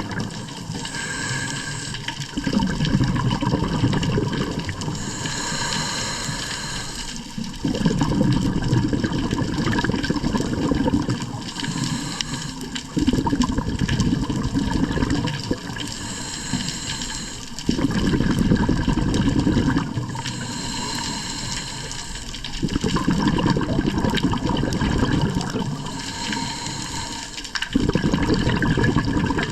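Rushing, splashing water noise with no speech, changing abruptly every few seconds as one clip cuts to the next.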